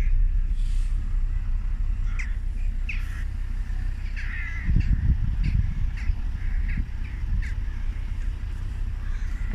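A large flock of crows cawing, many short calls overlapping at uneven intervals. Under them runs a low rumble of wind on the microphone, gustier around the middle.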